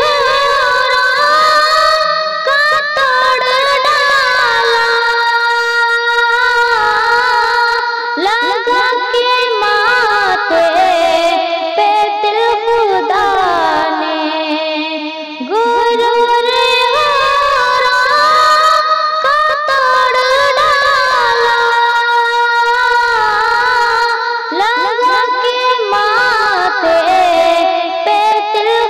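A woman singing a naat, an Urdu devotional song, in several overlapping vocal lines with wavering vibrato.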